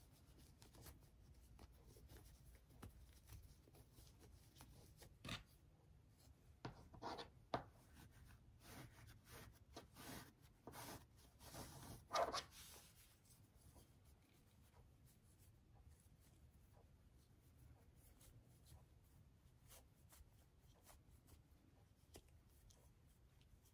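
Faint rustling and rubbing of muslin fabric as a sewn piece is turned right side out with the fingers and a chopstick pushed inside it, with a cluster of louder rustles in the middle.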